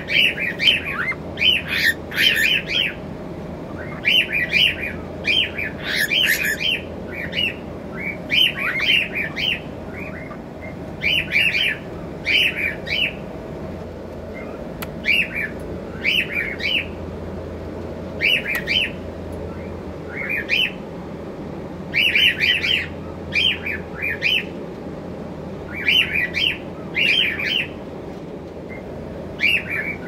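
Cockatiel chirping in quick bursts of short, high chirps, a burst every second or two.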